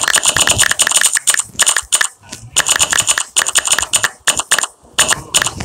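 Rapid key-press clicks of a smartphone's on-screen keyboard as a message is typed, each press a short bright click, with brief pauses about two seconds in and just after four seconds.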